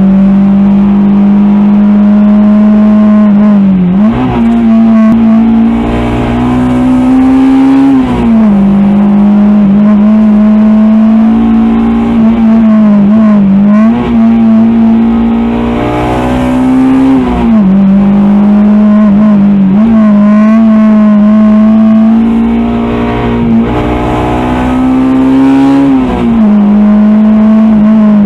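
Honda DC2 Integra's high-compression B18C2 four-cylinder with a B16A2 head, TODA cams and a Skunk2 intake, heard from inside the cabin pulling hard at high revs. Its note holds steady for long spells and dips and steps back up several times as the driver works through the corners.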